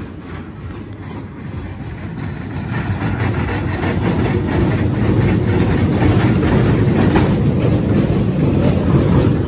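Small dragon kiddie coaster running: a steady rumble and clatter of its cars rolling on the rails, building up from about two seconds in and staying loud.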